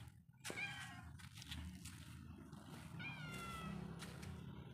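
Cat meowing twice, once about half a second in and again, longer, about three seconds in, each call falling in pitch.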